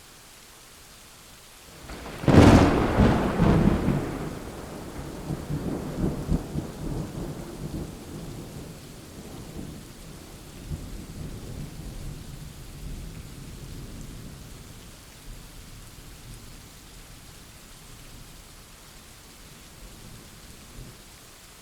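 Thunderstorm: steady rain hiss, then about two seconds in a loud, sharp thunderclap that rolls into a long low rumble fading away over the next dozen seconds or so.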